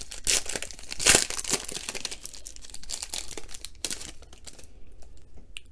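Foil trading-card pack wrapper crinkling and crackling as it is torn open by hand, with the loudest crackle about a second in. It dies down near the end.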